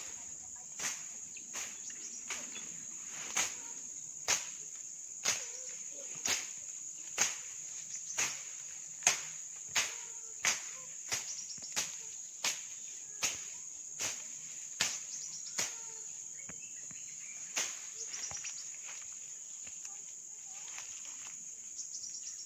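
A steady high-pitched chorus of crickets or cicadas, with crunching footsteps through dry undergrowth about once a second. The steps stop about two-thirds of the way in, leaving the insect chorus alone.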